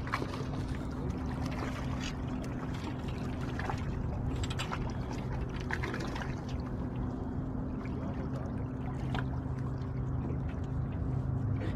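Water sloshing and splashing against breakwater rocks as a hooked fish thrashes at the surface, with scattered short splashes. A steady low hum runs underneath.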